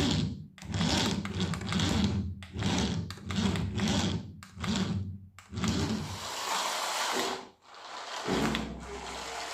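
Toy RC car's small electric motor whirring in repeated short bursts, then running steadily for about a second and a half.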